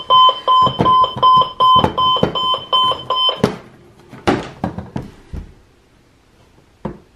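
LEGO brick radio alarm clock's buzzer alarm going off: a fast run of short, high, even beeps, about three a second, which stops about three and a half seconds in. Then come knocks and clicks of the plastic clock being handled, with one sharp click near the end.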